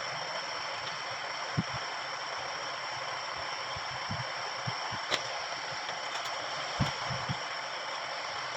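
Steady hiss with a few dull knocks and a sharp click about five seconds in: handling noise from boards being screwed into an amplifier cabinet.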